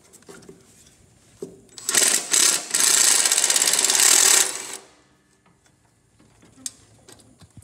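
Small cordless impact driver with a nut-driver bit, hammering in a rapid rattle as it backs out a mower's starter-solenoid mounting screw. It gives a couple of short bursts about two seconds in, then runs for nearly two seconds before stopping.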